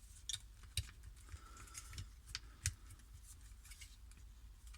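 Hard plastic parts of a Takara Transformers Legends Misfire figure clicking and tapping as they are moved and pegged into place during transformation: a handful of scattered sharp clicks, the loudest about three quarters of a second in.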